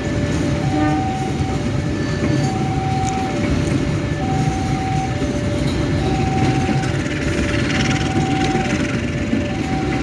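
Freight train of rail tank wagons rolling past, a steady rumble of wheels on the track. Over it a two-note warning signal sounds, the two notes alternating evenly, each held for under a second.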